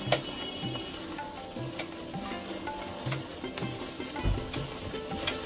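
Marinated mutton skewers sizzling over hot charcoal as basting drips onto the embers and flares up, a steady crackling hiss with a few sharp pops. Soft background music plays underneath.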